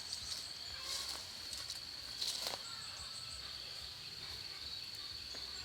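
Insects in the background keep up a steady, unbroken high-pitched drone. A few brief rustles and clicks sound near the start and about two seconds in.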